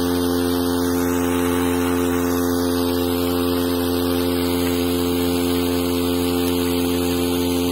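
Small outboard motor on a fishing kayak, running steadily at constant speed under way.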